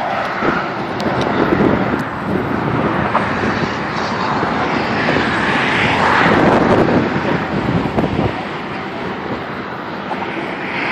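Highway traffic passing at speed: a steady rush of tyre and engine noise that swells as vehicles go by, loudest about six seconds in.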